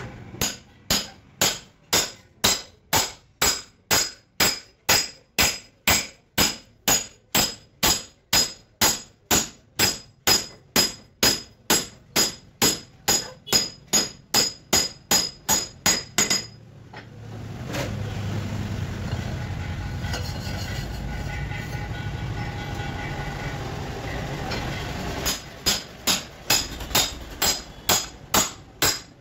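Rhythmic metal-on-metal hammer blows, about two and a half a second, each ringing, on a steel driver plate that drives a cylinder sleeve down into a four-cylinder Cummins engine block. The blows stop about 16 seconds in, give way to several seconds of steady low noise, and start again, a little faster, near the end.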